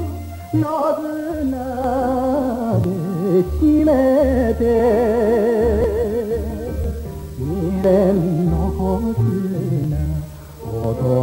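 Enka song: a male voice sings a slow phrase with heavy, wide vibrato over a steady band backing with bass.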